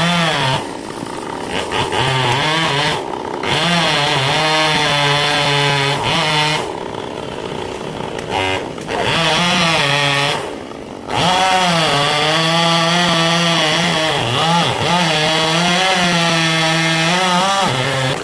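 Chainsaw running near full throttle and cutting wood, its pitch sagging and recovering again and again as the chain bites, easing back briefly about three seconds in, about seven seconds in and about ten seconds in.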